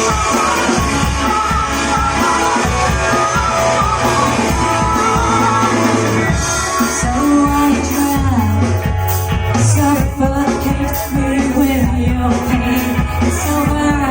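Rock band playing live, with a singer's voice over guitars, bass and drums.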